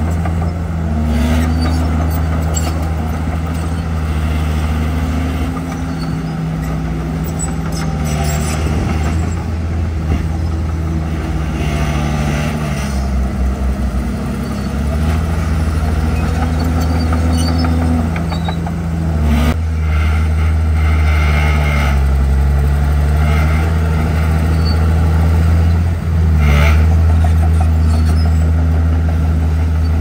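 Komatsu D51PX crawler bulldozer's diesel engine running under load as it pushes soil. The engine note rises and falls as the load changes, with occasional metallic clanks.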